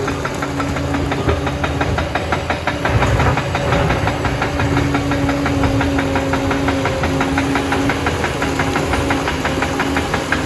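Liebherr PR 746 crawler dozer running steadily, its engine sound carrying a steady whine and a fast, even clatter.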